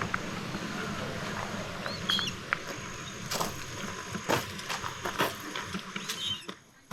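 Outdoor ambience with a steady low hum, a few short bird chirps about two seconds in, and several sharp clicks in the second half.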